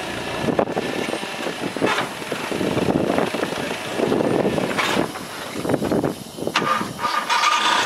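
Komatsu forklift's engine running with uneven revs, with a few knocks, and a higher steady tone for about a second near the end.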